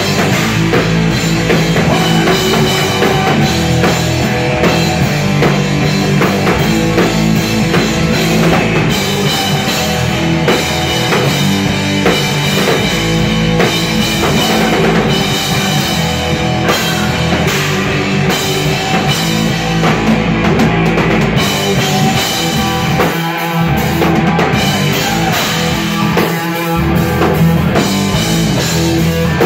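Rock band playing live and loud: a drum kit driving the beat under electric guitars, with no singing. The lowest notes drop out briefly twice in the later part.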